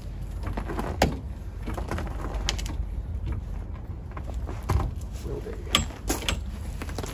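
Hydraulic trolley jack being pumped by its long handle to raise a car, with several separate clicks and clunks from the pump strokes over a steady low rumble.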